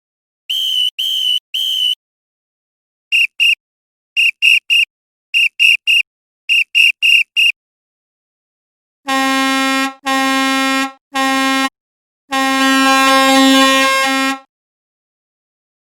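Whistle sound effects: three short blasts, then quick groups of two to four short toots. A horn follows with four blasts, the last and longest about two seconds.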